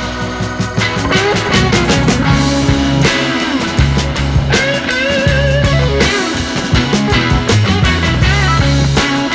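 Background music: an upbeat rock track with guitar and a steady drum beat.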